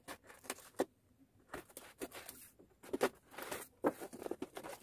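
Fingers handling a taped cardboard shipping box: scattered taps, scratches and rustles on the cardboard and tape, with a short pause about a second in.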